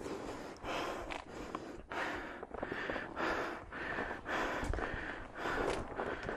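A hiker panting hard after climbing, rapid noisy breaths in and out close to the microphone, about one and a half a second.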